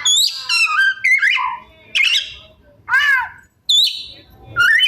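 Oriental magpie-robin (kacer) singing: a string of about five short, loud whistled phrases, each with quick rising and falling sweeps, separated by brief pauses.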